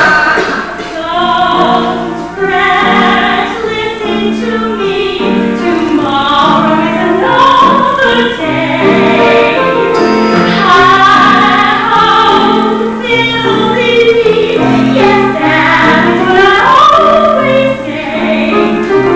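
A song from a stage musical: voices singing a melody over instrumental accompaniment, with held low notes that change every half second or so.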